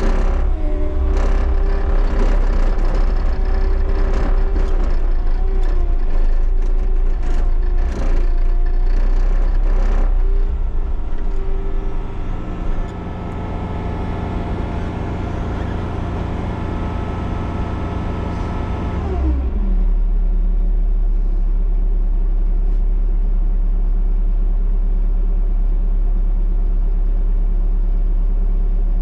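Bobcat T77 track loader's diesel engine running at high throttle, with knocks and clatter over the first ten seconds or so. About nineteen seconds in, the engine winds down to idle and runs steadily.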